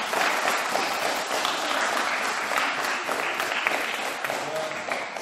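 Applause: many hands clapping in a steady patter that thins out near the end.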